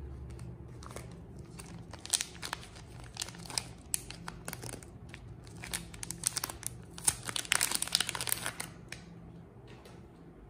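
Crinkly plastic wrapper of a bar of Siena soap crackling and tearing as it is opened by hand: irregular sharp crackles that start about a second in, grow densest near the end, then stop.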